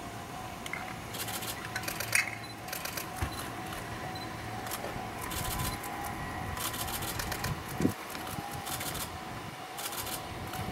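Railway level-crossing warning bell ringing steadily as a train approaches. Several spells of rapid, high-pitched clicking come and go over it.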